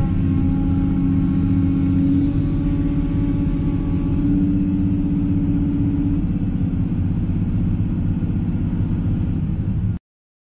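Excavator's diesel engine running with a steady heavy rumble and a higher droning tone that comes and goes over it; the sound cuts off abruptly about ten seconds in.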